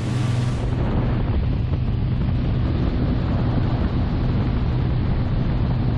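Motorboat running at cruising speed: a steady low engine drone under the rushing of its wake, with wind buffeting the microphone.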